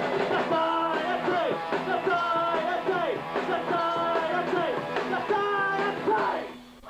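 Rock band playing live: a male singer over electric guitars, bass and drums. The song stops near the end.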